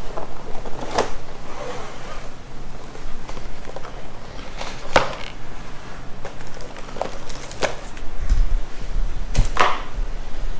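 Cardboard packaging and accessory boxes being handled: scattered rustles and short knocks a few seconds apart, with a low rumble near the end as the camera is moved.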